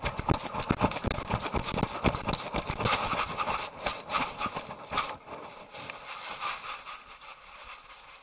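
Rapid, irregular thumps and rubbing from an action camera worn by a running Akita, jolting with each stride as its paws strike the dirt trail. The knocks thin out and grow quieter over the last few seconds as the dog slows.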